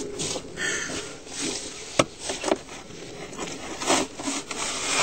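Snow shovel scraping and digging snow off outdoor steps in a series of uneven strokes, with one sharp knock about two seconds in.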